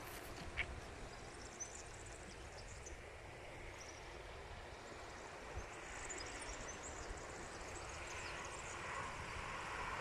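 Small birds chirping faintly and sporadically over a steady open-air hiss, with wind rumbling low on the microphone. There is one sharp click about half a second in, and a broad rushing noise swells near the end.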